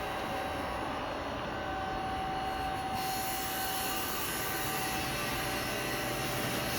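Steady machine hum with a few faint, steady whining tones and a hiss that gets brighter about three seconds in, from the powered-up engine lathe standing with its spindle stopped.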